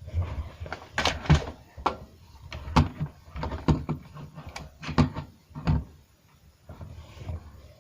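A series of irregular knocks and thumps, several a second, with short quiet gaps between them.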